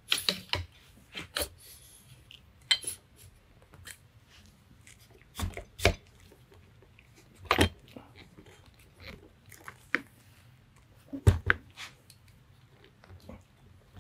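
Scattered clicks and knocks of an FX Impact M3 air rifle being handled while its barrel is fitted back into the action, with a handful of louder knocks spread through.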